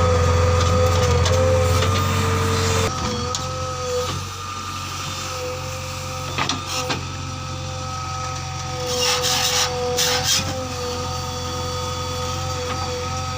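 Diesel engine of a heavy earthmoving machine running steadily under a high whine, louder for the first three seconds and then dropping. There are a few sharp clicks in the middle and short hissing bursts around nine to ten seconds in.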